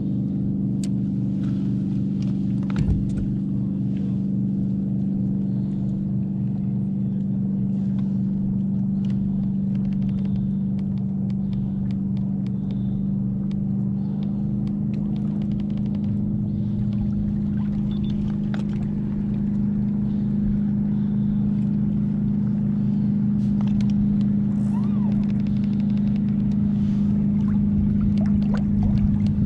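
Steady low hum of a fishing kayak's electric trolling motor, running at a constant pitch, with faint scattered clicks from handling the rod and reel.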